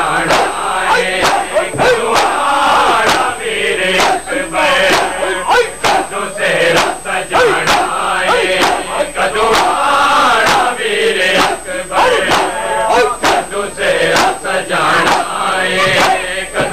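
A crowd of men chanting a noha (Shia lament) together, with a steady rhythm of sharp chest-beating slaps (matam) keeping time.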